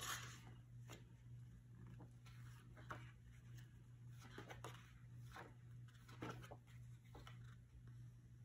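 Faint rustles and soft taps of paper sticker-book pages being handled and turned, over a low steady hum.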